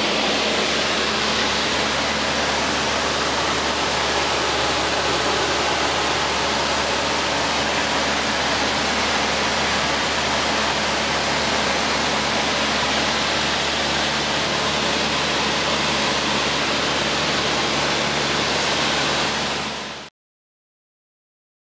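Cabin noise of a Cessna 152 in flight: its four-cylinder Lycoming engine and propeller running steadily under a loud hiss of rushing air, with a faint steady low hum. About twenty seconds in it fades out quickly to dead silence.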